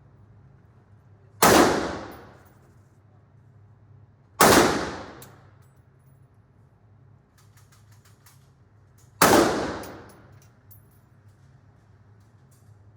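Three single gunshots, about three and five seconds apart, each trailing off in a long echo, with faint metallic clicks between them.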